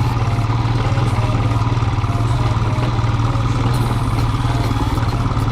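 Royal Enfield Himalayan motorcycle's single-cylinder engine running steadily at low speed on an off-road track, its beat an even, unchanging note.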